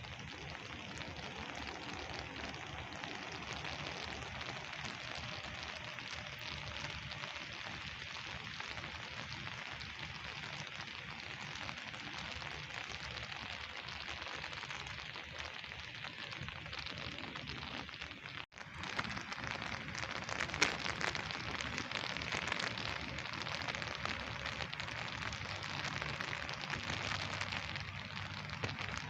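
Steady rain falling and pattering on surfaces. It cuts out for an instant about two-thirds of the way through, then comes back a little louder with some sharper drop hits.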